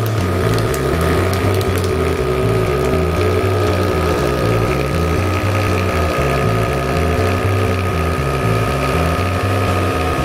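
EasyPRO Vac-Star vacuum sealer's double piston pump running steadily as it draws the air out of a bag, with a steady hum and a pulsing low throb. A few light clicks in the first two seconds.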